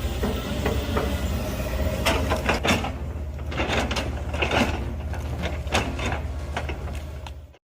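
Heavy stump-removal machine's engine running steadily, with intermittent sharp knocks and cracks as it works the stumps. The sound cuts off suddenly near the end.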